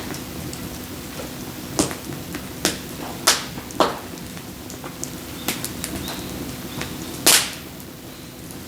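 Firewood logs knocking and clacking as they are handled and dropped: about five sharp, loud knocks and scattered smaller clicks over a steady hiss and low hum.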